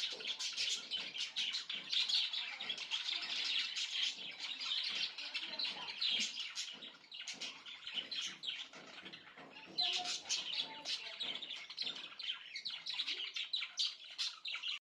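Pet budgerigars chirping and chattering in a dense stream of quick high chirps. The chatter thins out for a few seconds around the middle, picks up again, and cuts off suddenly near the end.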